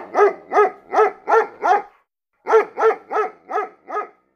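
A dog barking in a quick run of short, evenly spaced barks, about three a second, pausing briefly about two seconds in.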